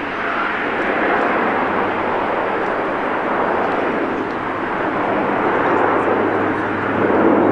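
Airbus A400M's four TP400-D6 turboprop engines with eight-bladed propellers, heard in flight: a steady rushing drone over a low, even propeller hum, growing a little louder near the end.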